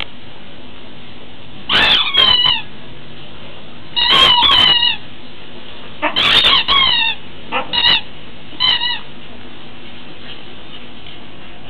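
Dog's squeaky fish toy squeaking as a Siberian husky bites and chews it: five clusters of short squeaks, each squeak dipping in pitch, spread over several seconds, over a steady background hiss.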